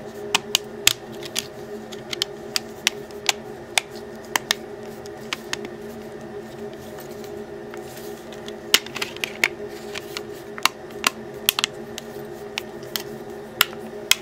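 Plastic back battery cover of a Samsung Galaxy Nexus being pressed onto the phone, its clips snapping in as many small, irregular clicks; the cover is hard to close.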